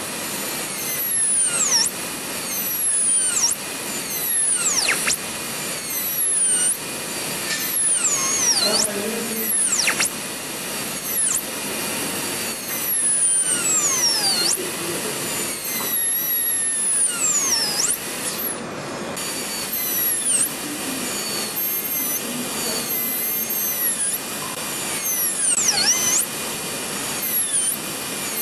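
High-speed air-turbine dental handpiece with water spray whining as its diamond bur cuts an abutment tooth of a typodont for a bridge preparation. Its pitch drops sharply each time the bur bears on the tooth and springs back up when it is eased off, over and over in short strokes, with a steady hiss of spray.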